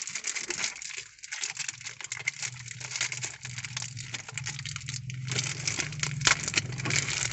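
Thin plastic wrapping crinkling and crackling as it is pulled off a battery charger by hand, in many small irregular crackles, with a low steady hum underneath.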